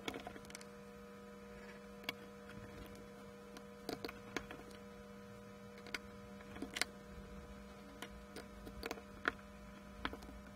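Faint steady electrical hum with irregular light clicks and taps from hands adjusting the bearing and its bolt on a metal IC lead setting tool.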